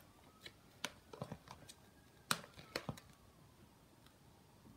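Faint, irregular clicks and taps of a stirring utensil against the container while a thick fluffy-slime mixture is being stirred, the clicks coming in two small clusters with the sharpest one just past the middle.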